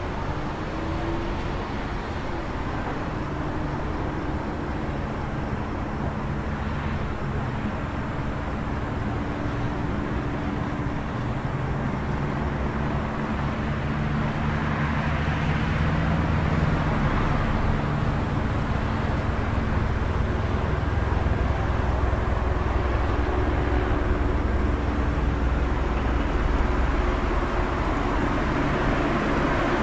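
City street ambience: steady traffic noise with the low hum of vehicle engines, growing a little louder from about halfway through.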